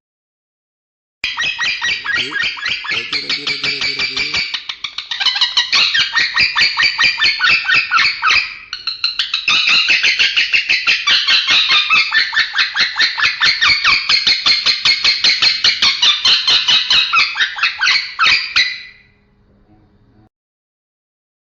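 Male lovebird singing a long, rapid chattering song: a dense stream of fast, high chirps with short breaks about four and nine seconds in. It starts about a second in and stops near the end.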